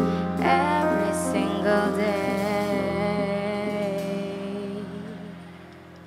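A live band's closing chord, held with keyboard and bass under a woman's sustained sung note with vibrato, slowly dying away.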